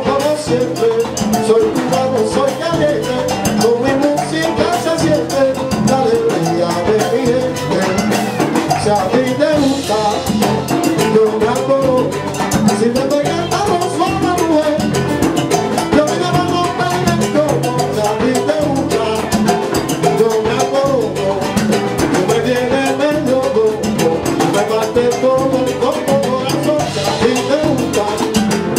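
Live salsa band playing, with congas, timbales, drum kit, bass and piano under a singer at the microphone.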